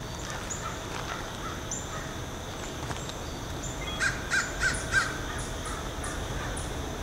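A crow gives a quick run of four caws about four seconds in, over scattered faint, high bird chirps.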